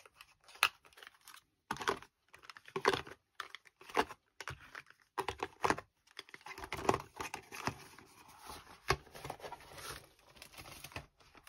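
Small cardboard boxes of gel nail polish being handled and packed back into their set box, in irregular taps, clicks and rustles, with the crinkle of a cellophane-wrapped box.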